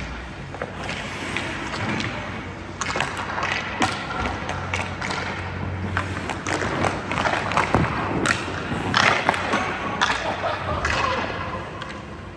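Ice skate blades scraping and cutting across rink ice as a goalie shuffles and drops in the crease, with repeated sharp knocks and thuds of pucks, sticks and goalie pads, thickest in the middle and latter part.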